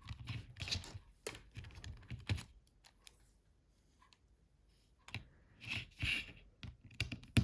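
Light, irregular clicks and taps of a small screwdriver and plastic phone parts being handled while a Nokia 5220 XpressMusic's screws are taken out, with a brief rustle about six seconds in.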